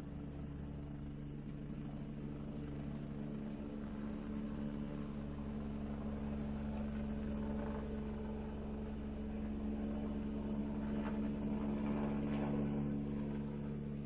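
Helicopter engine and rotor running steadily during take-off, a low droning hum that grows gradually louder and begins to fade near the end.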